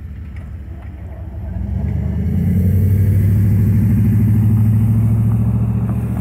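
Pickup truck engine accelerating as the truck pulls away and drives close past. The engine hum swells about two seconds in, stays loud for a few seconds, then begins to ease near the end.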